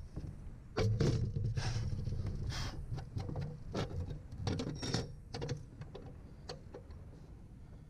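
Scattered clicks and taps of metal davit bracket hardware being picked up, fitted and set down on a fibreglass deck by gloved hands, over a low steady hum.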